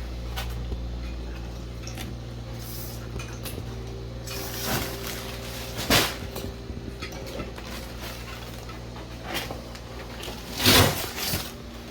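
Scattered knocks and clatter of things being handled over a steady low hum, with two louder knocks, one about six seconds in and a brief cluster near the end.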